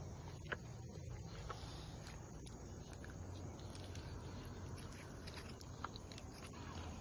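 Light footsteps and rustling on a woodland floor: a few scattered faint clicks and ticks over a steady low rumble.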